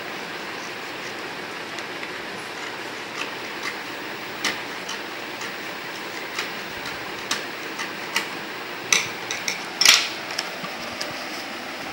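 Scissors snipping through folded paper: a series of short, irregular sharp clicks over a steady hiss, with a louder clatter near the end as the scissors are laid down on the wooden table.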